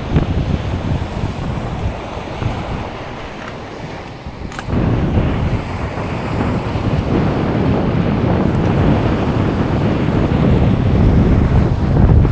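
Wind rumbling on the microphone over the wash of surf. It eases off a couple of seconds in, then picks up again, with one short click about four and a half seconds in.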